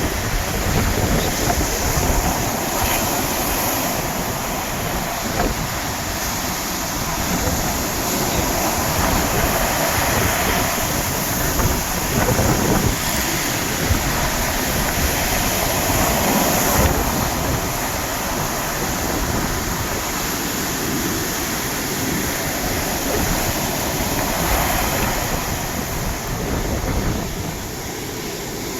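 Sea waves breaking on a shore: a continuous loud wash of surf that swells and falls every few seconds as waves crash in.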